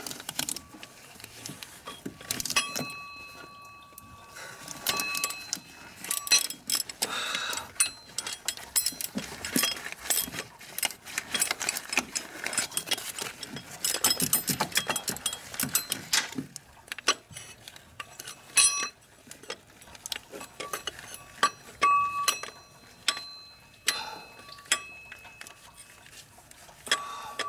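Hand tools and metal engine parts clinking and clicking as they are handled, with irregular knocks, scraping and a few short metallic rings.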